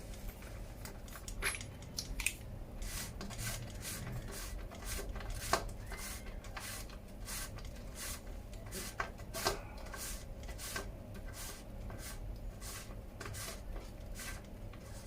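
A 24 mm ratchet driving a bottom-bracket tool, clicking in a quick, even run of about three sharp metallic clicks a second, as a square-taper bottom bracket cup is unscrewed from a bicycle frame.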